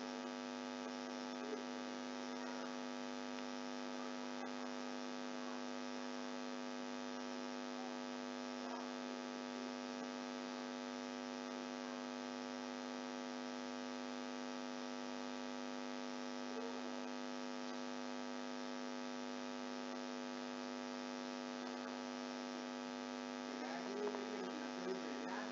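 Steady electrical hum with many evenly spaced overtones, giving it a buzzy edge. It is a low, constant background with no speech.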